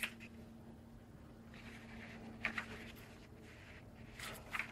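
Sheets of handwritten paper notes being handled and leafed through, with a few soft rustles about two and a half seconds in and again near the end, over a faint steady hum.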